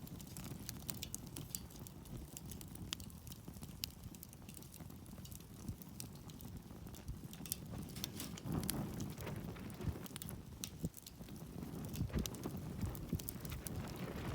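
Wood campfire crackling, with irregular sharp pops and snaps over a low rumble that swells a couple of times.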